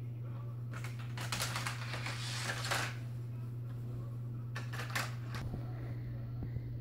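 Toy cars clattering along a plastic racetrack. A rapid run of clicks and rattles starts about a second in and lasts about two seconds, then a shorter burst comes about five seconds in, over a steady low hum.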